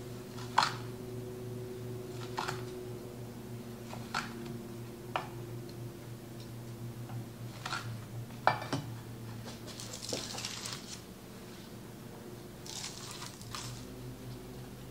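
Chef's knife cutting through rolled pastry logs and knocking down onto a wooden cutting board, about six sharp knocks a second or two apart. Near the end come two brief rustles as the slices are set on a parchment-lined sheet pan, over a steady low hum.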